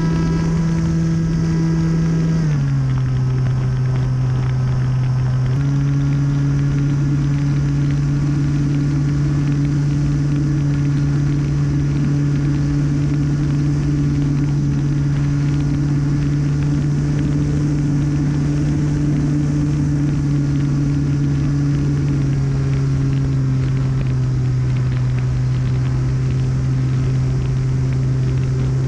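Single Sunnysky 2216 1400kv brushless motor and propeller of an RC model Harrier running at high throttle, heard from onboard as a steady droning whine. The pitch dips slightly about two and a half seconds in, comes back up about three seconds later, and eases down a little past twenty seconds.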